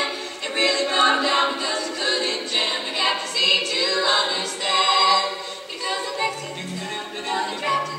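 Women's barbershop quartet singing a cappella in close four-part harmony, with a low voice line moving underneath in the second half.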